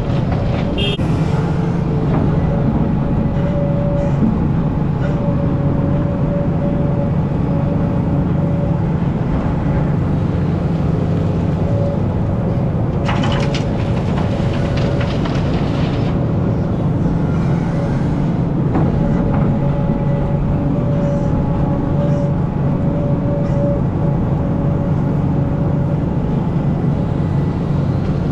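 Hidromek excavator's diesel engine running steadily under load, with a higher whine that comes and goes. About thirteen seconds in, a bucketload of soil and rocks pours into a steel dump-truck bed with a rattling rush.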